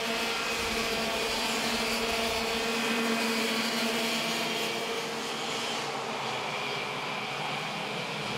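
Racing kart engines running at speed as a pack of karts passes, a steady high engine note that fades a little about five seconds in.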